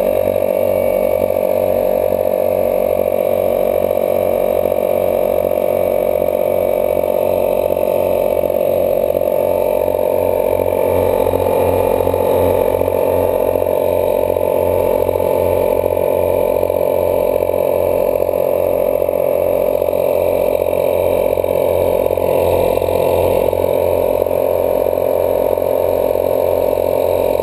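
ARB dual 12-volt air compressor running steadily with a pulsing hum as it refills a one-gallon air tank. It cuts off suddenly at the very end, as the tank reaches full pressure.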